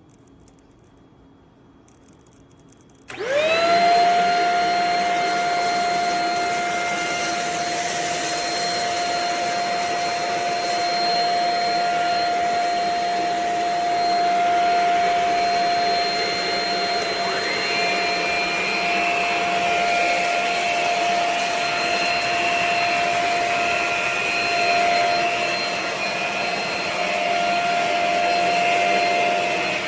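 Shark Rocket Pet Plus corded stick vacuum switched on about three seconds in, its motor spinning up quickly to a steady whine over rushing airflow. About halfway through, a second, higher tone rises in and stays.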